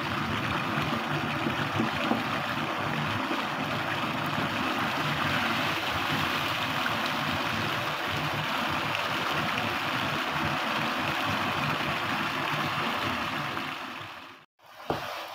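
Minced mutton bubbling and sizzling in its own juices and oil in a wok over full flame, a steady bubbling as the water boils off. The sound cuts out briefly near the end.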